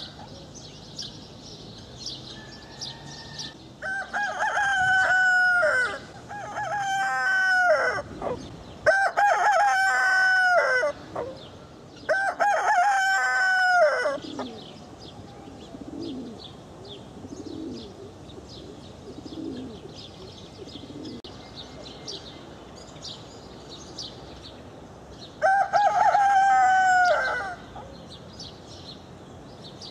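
Rooster crowing: four long crows in close succession, then one more near the end. Between the crows come low clucks and faint chirping from small birds.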